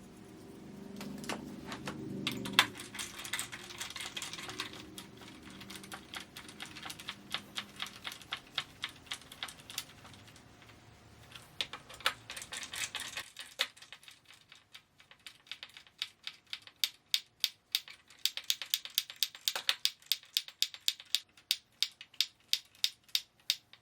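A new fastener being driven into the wooden base of a rocker-recliner, with a long run of sharp clicks: uneven at first, then evenly spaced at about two to three a second in the second half.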